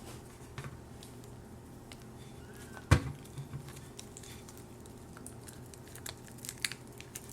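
Quiet handling noises as a Play-Doh surprise egg is pulled open by hand: scattered light ticks and rustles, with one sharp knock about three seconds in.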